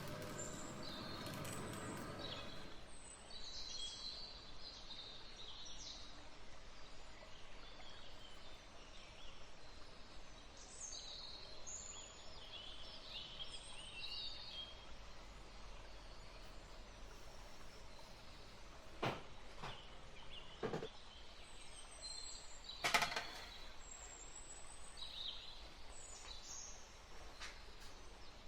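Birds chirping and singing, many short high calls over a steady background hiss. A few sharp knocks come in the second half, the loudest about two-thirds of the way through.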